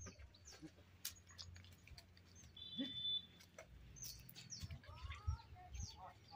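Birds chirping faintly, with scattered short calls and a brief high whistled note about three seconds in, along with a few light clicks and knocks.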